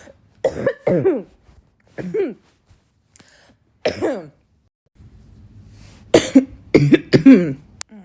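A woman coughing in a fit: a few short coughs spaced out over the first half, then a run of louder coughs close together near the end.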